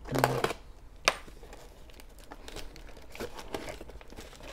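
Plastic wrapping crinkling and tearing as it is pulled off a boxed power tool, with one sharp snap about a second in, then faint scattered crackles.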